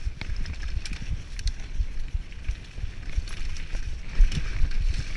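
Mountain bike riding fast down rocky forest singletrack: wind buffeting the microphone, irregular bumps and thuds as the tyres hit rocks and roots, and rattling clicks from the bike, with a heavier knock about four seconds in.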